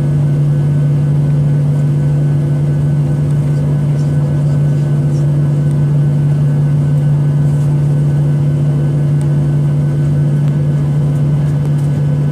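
Steady, unchanging drone of a Boeing 737-800 airliner: one strong low hum with fainter higher tones above it over a noisy rush.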